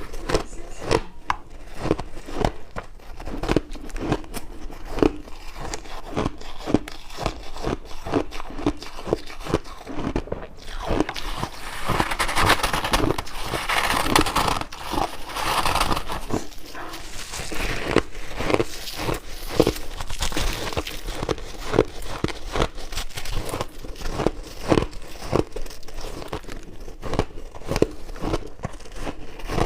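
A person biting and chewing chunks of shaved ice close to the microphone, giving a run of sharp crunches. The crunching grows denser and grittier from about twelve to sixteen seconds in.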